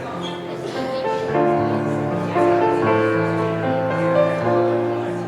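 Slow instrumental music of held chords that change about every second, on a keyboard instrument.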